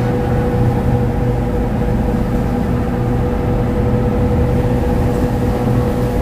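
Tour cruise boat's engine running steadily, a constant loud drone with a steady hum.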